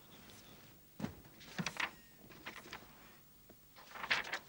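Paper rustling in irregular short bursts, as loose papers and photos are leafed through and handled, with the loudest handling near the end.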